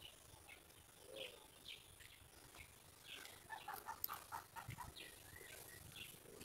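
Faint, scattered bird chirps over near silence, with a quick run of short chirps about halfway through.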